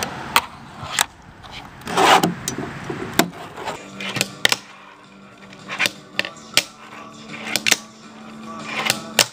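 Fingerboard clicking and clacking: the small deck and its trucks snapping and landing on hard surfaces in sharp, irregularly spaced clicks. From about four seconds in, a steady low tone runs under the clicks.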